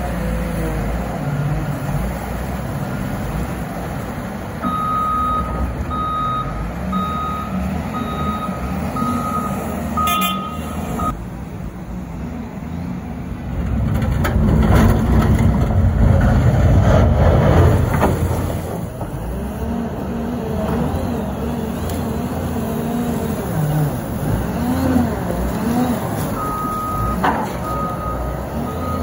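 Cat 950M wheel loader's diesel engine working, with a back-up alarm beeping steadily as it reverses, for several seconds near the start and again near the end. In the middle the engine runs up loudly for a few seconds as the bucket drives into a snow pile.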